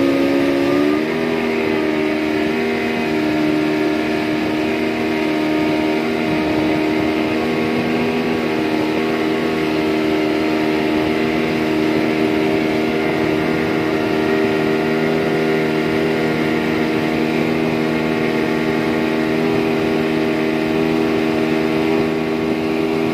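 Speedboat engine running under a full load of passengers, climbing in pitch in the first second and then holding steady at high revs.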